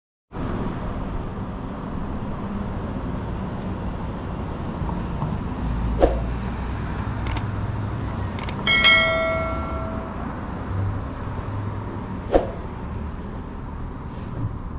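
City street traffic: a steady rumble of cars passing. A few sharp clicks sound through it, and just past the middle a short bright ding rings out for about a second and fades.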